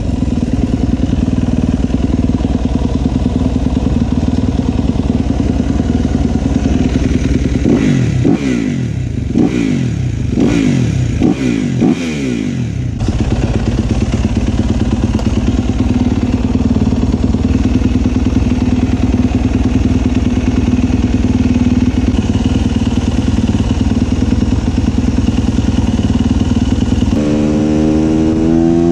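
Motorcycle engine running steadily, then revved in a quick series of blips for several seconds, settling back to a steady run. Near the end it pulls away, the pitch climbing as it accelerates.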